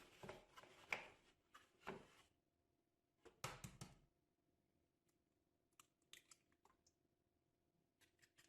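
Scattered light clicks and taps of hands and utensils at kitchen work. A few sharper knocks come in the first four seconds, then only sparse faint clicks.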